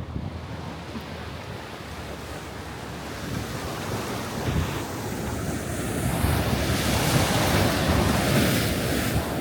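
Ocean surf washing onto a beach, the rush of the waves swelling to its loudest about six to nine seconds in, with wind buffeting the microphone.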